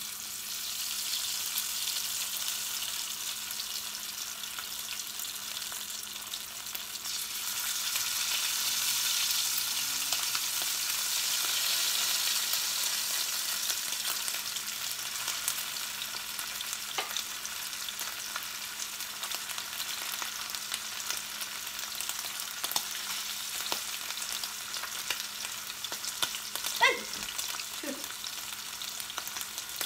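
Coated beef pieces sizzling steadily in hot olive oil in a stainless steel skillet. Metal tongs click a few times against the pan, most sharply near the end, as more pieces go in.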